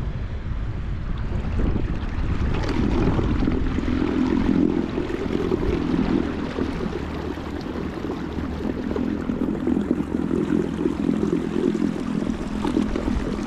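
Small electric trolling motor running at full throttle as it pushes a kick boat. Its propeller churns and splashes the water, a steady rush that gets louder about two seconds in.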